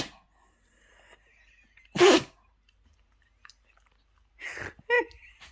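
A dog sneezing, two sharp sneezes in a fit of repeated sneezing: one right at the start and a louder one about two seconds in. A brief vocal sound follows near the end.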